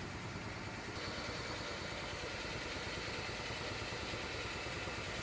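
A motor running steadily: a low hum with a faint higher whine that comes in about a second in.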